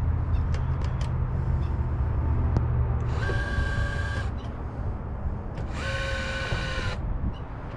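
Electric motor of a Minn Kota Ulterra trolling motor whining in two short bursts of about a second each, a few seconds apart, as it is run under power. A low rumble fills the first few seconds.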